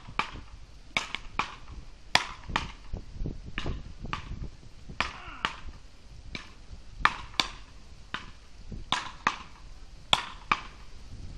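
Wooden beach paddles hitting a small ball in a rally: sharp cracks about once or twice a second, many of them in close pairs.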